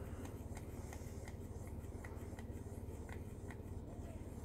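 Paintbrush handle stirring paint in a small plastic cup: faint, irregular light ticks and scrapes over a low steady hum.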